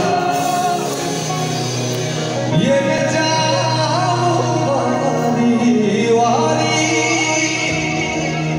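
Live band playing with a male singer: a sung vocal line gliding over long held chords, with electric guitar, keyboard and drums, heard through the stage amplification.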